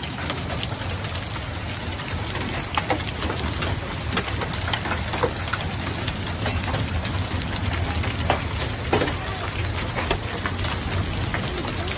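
Hailstorm: heavy rain falling steadily, with scattered sharp ticks of hailstones striking the ground and nearby surfaces.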